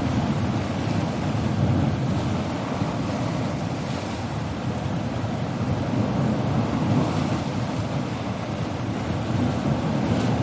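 Sea waves breaking on a coast: a continuous wash of surf that swells and eases, with a wave breaking about four seconds in and another near the end.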